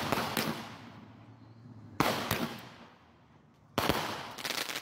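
48-shot consumer firework cake ("Dime Bag") firing shots that burst overhead: three sharp bangs about two seconds apart, each followed by a few smaller pops and a fading crackle.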